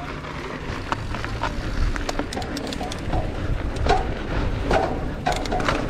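Mountain bike riding over a dirt trail: steady rolling and rushing noise, broken by many sharp, irregular clicks and rattles.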